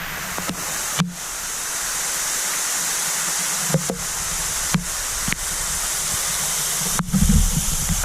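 Waterfall rushing: a steady, even hiss of falling water, with a few sharp clicks and a short low rumble about seven seconds in.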